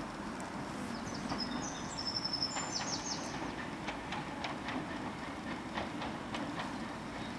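Merseyrail PEP electric multiple unit running through the station: a steady rumble with repeated clicks of wheels over rail joints, and a few short high squeals from about one to three seconds in.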